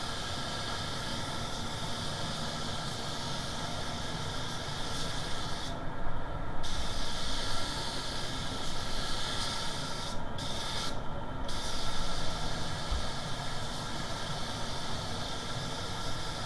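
Compressed-air suction-feed spray gun hissing as it sprays paint onto a plastic car bumper. The hiss breaks off briefly about six seconds in, and twice more around ten to eleven seconds, as the trigger is let go between passes.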